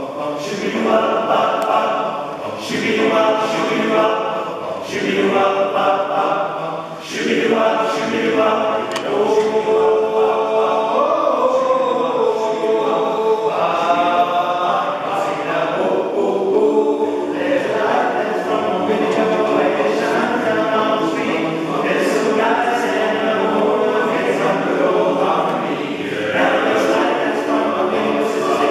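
Male voice choir singing a cappella.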